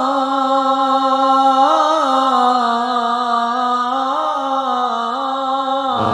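Arabic nasheed in praise of the Prophet, sung by a single voice holding a long melisma on one vowel, the held note turning up and down in small ornaments every second or two.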